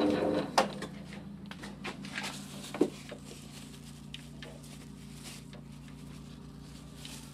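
South Bend 9C lathe running slowly in back gear is shut off about half a second in, then metal clicks and a clunk as the back-gear lever and bull-gear pin on the cast iron headstock are shifted by hand back into direct drive, over a faint steady hum.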